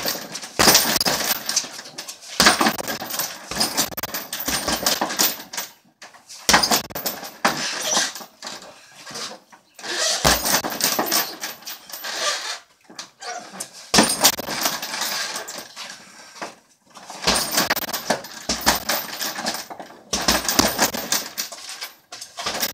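Punches landing on an 80 lb TUF-WEAR heavy bag in rapid flurries of a few seconds each, with short pauses between, the bag's hanging chain rattling and jingling with the hits.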